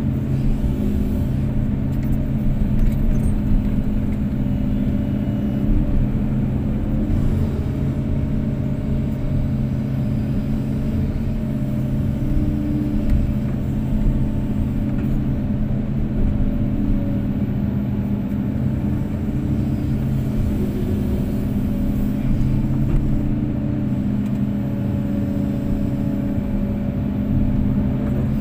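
Kobelco SK250-8 excavator's diesel engine running steadily at working speed.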